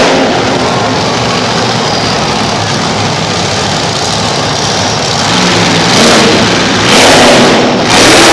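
Monster truck engine running hard, rising in several loud throttle surges over the last few seconds as the truck accelerates toward a jump.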